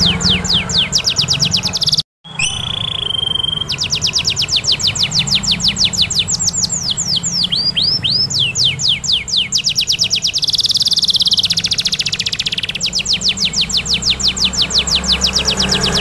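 Domestic canary singing long rolling trills: fast series of repeated high notes that change speed from phrase to phrase, with a short steady whistle and a very fast buzzing roll near the end. The song cuts out briefly about two seconds in.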